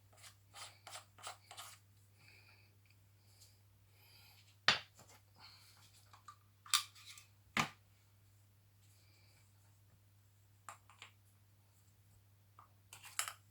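Flashlight being screwed together by hand: light scratching and rubbing of the threads and parts, with scattered small clicks and a few sharper clicks around five and seven seconds in. A faint steady low hum lies underneath.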